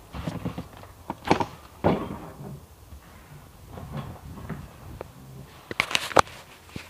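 An old door being pushed open and handled: a run of knocks and scrapes, scattered softer scuffs, then a quick cluster of sharp knocks about six seconds in.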